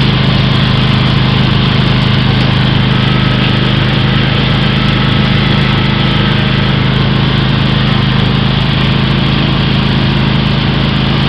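Riding lawn mower engine running steadily under way, its loud low hum holding an even speed with no change.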